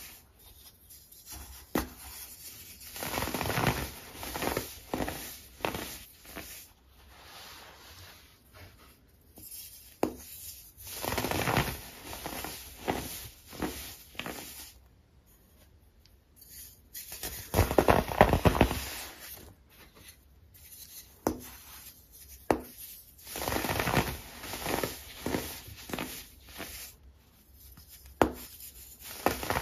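Hands crushing and crumbling clumps of dyed baking soda: dry, powdery crunching that comes in irregular bursts, loudest about two-thirds of the way in. Near the end a moulded baking-soda block is squeezed and crumbles.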